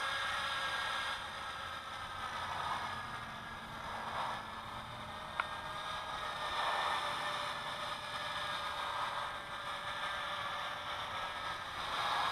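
Steady, faint whine of the JJRC H26 quadcopter's motors and propellers in flight at a distance, with wind buffeting the microphone in slow swells. A single sharp click about five seconds in.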